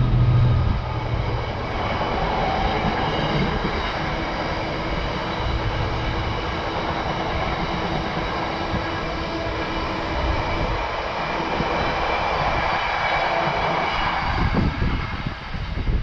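A train passing on the railway line: a steady drone with several whining tones, the low rumble dying away near the end.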